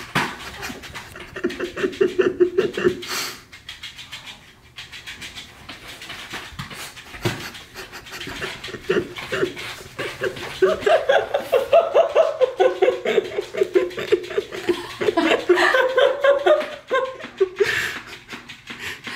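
Shiba Inu panting while it plays with a fish toy, the panting louder in the second half.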